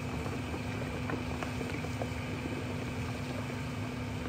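Steady low drone of outdoor barrel cook stoves with electric blower fans at their bases, a steady hum over a rumble, while big woks of stock boil on them. A few light clicks of kitchen work.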